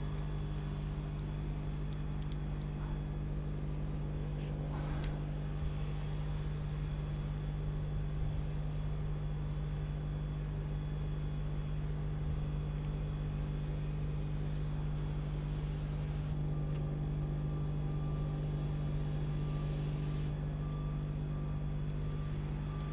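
An engine running steadily, a low hum at a constant pitch, with a few faint clicks over it and a thin higher tone joining about two-thirds of the way through.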